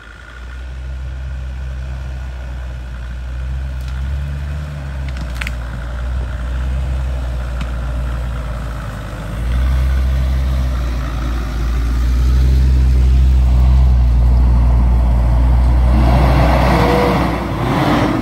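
Off-road SUV engine running at low revs, a Land Rover Discovery TD5 crawling along the track, getting louder about halfway through as it comes close. Near the end a broad rushing noise swells as a Jeep Grand Cherokee pulls up close.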